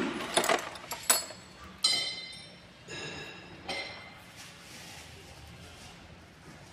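Metal tools and parts clinking sharply about five times during work on a KA24 engine's timing chain and tensioner. The clink near two seconds in rings on briefly. Things go quieter after about four seconds.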